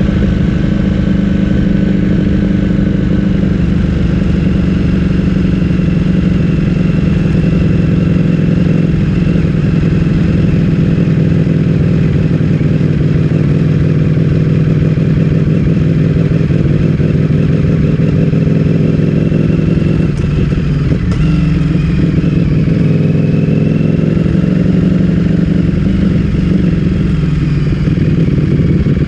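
Ducati Streetfighter V4 S's 1103 cc V4 engine, breathing through an Akrapovic full-system exhaust, running at a fairly steady speed with its pitch wavering only slightly.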